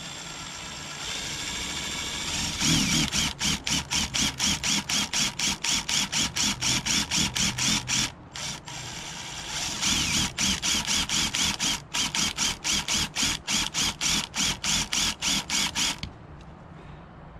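Cordless drill boring into the plug over the pilot screw on a Yamaha Rhino 660 carburetor. The motor runs steadily at first, then with a rapid even pulsing about three times a second, breaks off briefly about eight seconds in, and stops a little before the end.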